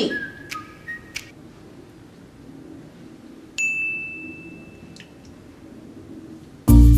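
A single bell-like ding about halfway through, one clear high tone that rings and fades over more than a second, after a few light clicks at the start. Loud music with a heavy bass cuts in near the end.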